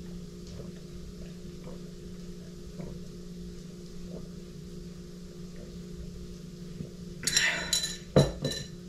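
Faint swallowing as a person drinks from a glass, over a steady low hum. About seven seconds in there is a louder rustle, then a sharp knock as the glass is set down on a hard surface.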